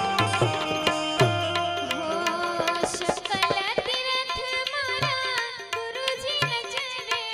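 Live Gujarati devotional aarti (santvani) music: tabla strokes, strongest in the first two seconds, under a gliding melodic line.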